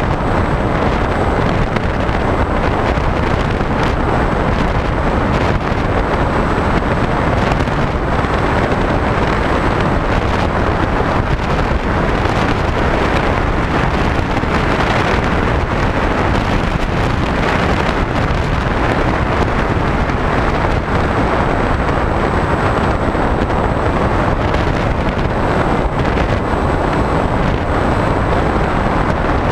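Steady rush of wind buffeting the onboard GoPro's microphone on a HobbyKing SkyEye electric FPV plane in flight, mixed with the plane's motor and propeller running, with a faint high whine held throughout.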